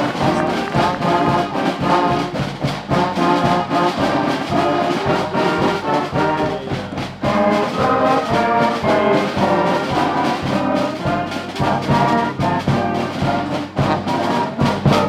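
Brass band music, trumpets and trombones playing a tune over a steady drum beat.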